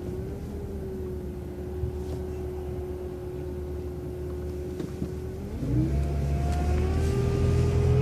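City transit bus held at a stop sign with a steady whine over its engine rumble, then about five and a half seconds in pulling away: the engine gets louder and the whine rises in pitch as it accelerates.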